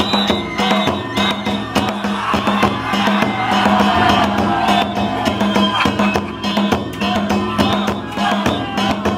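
Danjiri festival music (danjiri-bayashi): a bamboo transverse flute plays a melody over a rapid, steady beat on the float's taiko drum, with a crowd calling out.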